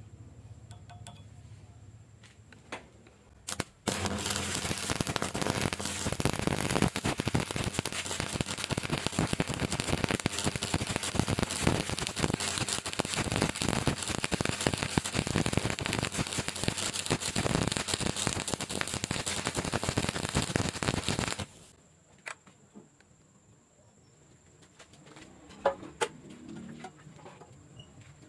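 Stick-welding arc crackling and sizzling steadily as an electrode burns along a bead. It starts after a couple of short strikes at about four seconds, runs for about eighteen seconds, then cuts off suddenly, leaving a few faint clicks.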